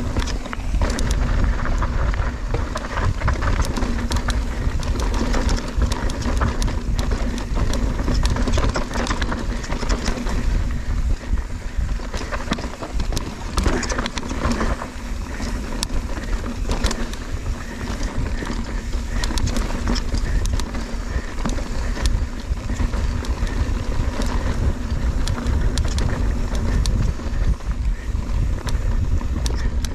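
Mountain bike running fast down a rough trail: wind buffets the microphone as a steady rumble, over constant rattling and clatter from the bike.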